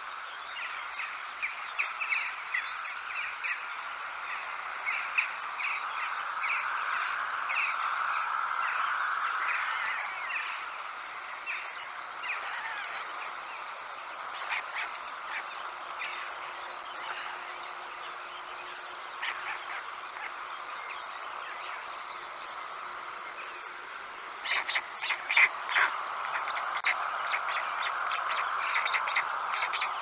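Small birds chirping and calling in quick runs of short, high notes over a steady background hiss. The calls grow busier and louder near the end.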